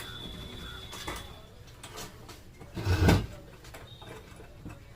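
Handling noise from parts being worked on: scattered light clicks and a louder knock about three seconds in.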